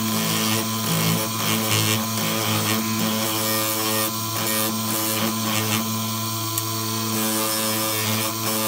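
Motor-driven abrasive grinding wheel grinding a steel blade: a steady motor hum under a continuous grinding hiss that swells and eases as the blade is pressed to the wheel.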